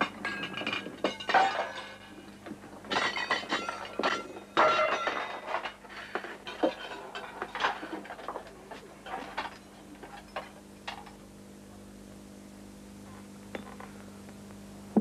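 Tableware being handled on a dining table: china, serving dishes, cutlery and glasses clinking and knocking against each other. The clinks come thick and fast for about the first nine seconds, then thin out to a few faint ones over a steady low hum.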